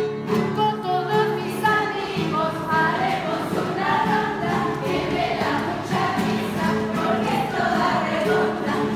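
A children's circle-game song (ronda), sung to a bouncy melody over instrumental backing with a steady beat.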